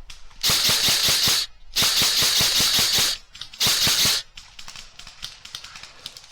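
Airsoft electric gun (AEG) firing full-auto close to the microphone in three bursts, the middle one the longest, each a rapid, even rattle of shots.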